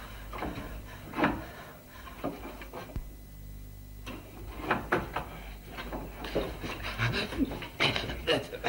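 Scattered knocks and rubbing of a wooden door moving in the dark, with a man's heavy breathing toward the end.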